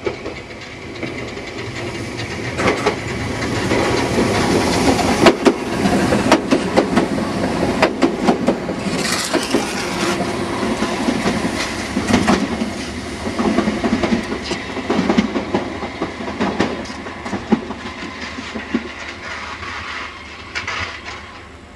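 A Merseyrail electric train passing, its running noise building over the first few seconds and fading near the end, broken by many sharp cracks and snaps. These are the sound of arcing between the collector shoes and the snow-covered third rail.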